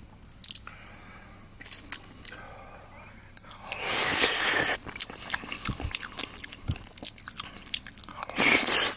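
A person chewing a mouthful of mapo tofu and rice, with small wet mouth clicks throughout. Two louder breathy rushes of air come about four seconds in and again near the end.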